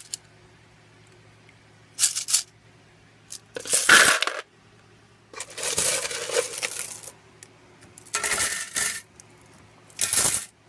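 Copper pennies jingling and clattering against each other in a metal mesh strainer as it is shaken, in five short bouts, the longest lasting over a second. A faint steady low hum sits underneath between the bouts.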